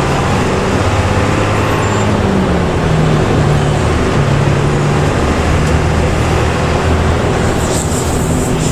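Intercity bus engine and exhaust running under way, with a steady rush of road noise. The low engine note steps up and down in pitch several times.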